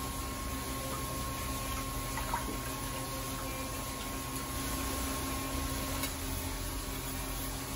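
Steady wash of running water with a low steady hum underneath; a faint steady tone above it stops about six seconds in.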